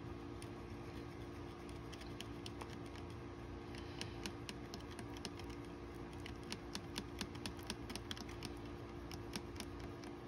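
Two-part quick-setting epoxy being stirred by hand with a mixing stick: faint, irregular light clicks and taps of the stick against the mixing surface, several a second.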